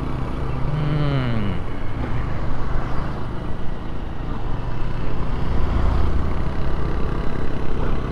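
Motorcycle engine running on the move, with wind rushing over the rider's microphone. About a second in, the engine note drops in pitch as the throttle eases off.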